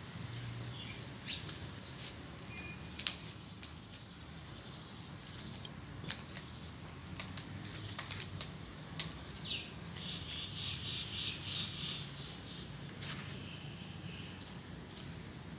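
Cat chewing food, with scattered sharp crunching clicks, and small birds chirping for a couple of seconds past the middle.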